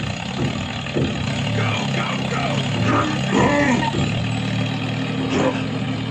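Mini tractor engine running steadily while ploughing, with rising and falling shouted calls over it about midway.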